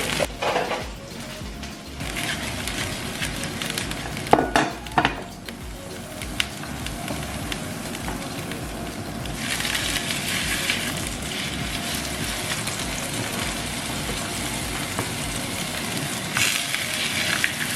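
Background music over food sizzling in a frying pan, the sizzle swelling louder a couple of times, with a few short clinks about four to five seconds in.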